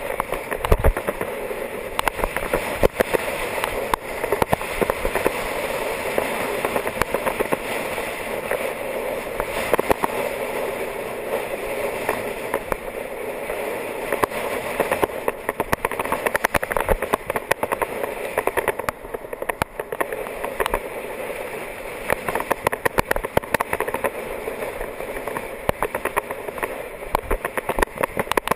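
Rush of wind and tyre noise from a road bike riding fast down a lane, picked up by a handlebar-mounted camera, with frequent clicks and knocks as it goes over the road surface.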